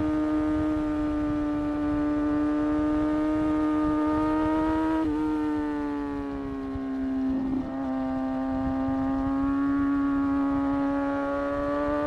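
Kawasaki ZX-6R's inline-four engine running under way, its steady high-pitched note climbing slowly, then sagging with a short break about halfway through before rising again, over low wind rush.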